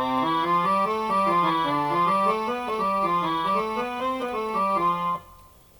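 Roland FR-1x digital piano accordion being played: a stepping melody with chords over a bass line that moves up and down, with the keys sounding their correct notes and no growl now that it is back in piano-accordion mode. The playing stops about five seconds in.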